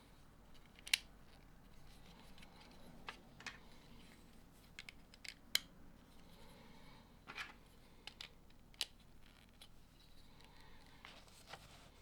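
Light plastic clicks and taps of LEGO bricks being handled and pressed together, a dozen or so irregular ticks over a faint hiss, the sharpest about a second in and again near the middle.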